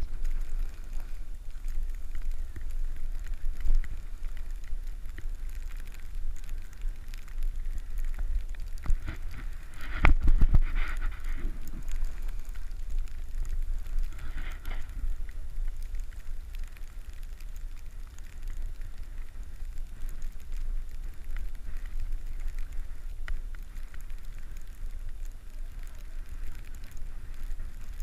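Wind buffeting the microphone while riding down a ski slope, over a steady hiss and scrape of sliding on snow. A louder burst of buffeting comes about ten seconds in.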